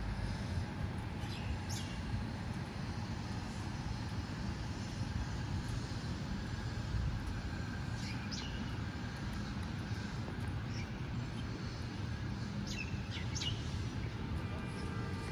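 Outdoor city ambience: a steady low hum of distant traffic, with small birds chirping briefly a few times.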